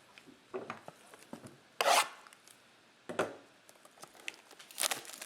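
Trading cards and cardboard packaging handled on a table: a few light clicks and two brief scrapes, the louder one about two seconds in.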